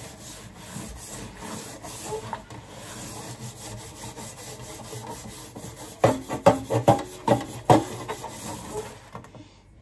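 A metal door threshold strip being scrubbed clean at a sink, a steady rhythmic rubbing. About six seconds in comes a quick run of short, loud sounds.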